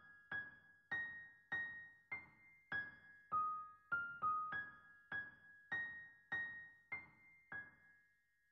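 Background music: a slow melody of soft, high single piano notes, roughly two a second, each left to fade. The notes stop about a second before the end.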